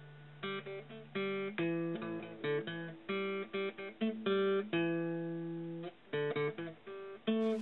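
Intro music: a plucked guitar playing a tune of short separate notes.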